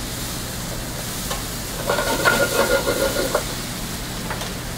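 Sliced onions, red and yellow peppers and garlic sizzling in olive oil in a sauté pan over a gas burner, being stirred. About two seconds in comes a louder scrape with a ringing note lasting about a second and a half.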